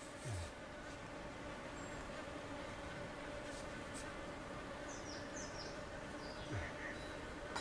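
An insect buzzing as a steady, even hum, with a few short high chirps about five seconds in.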